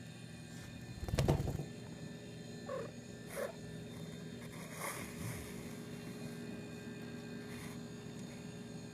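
A domestic cat giving several short, faint calls about three to five seconds in, after a brief low rumble a little over a second in.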